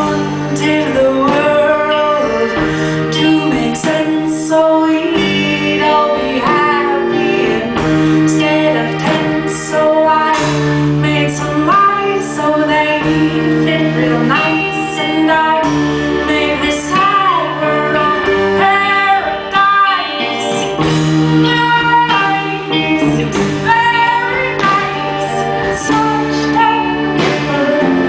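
Live band music with a woman singing lead into a microphone, backed by guitar and drums.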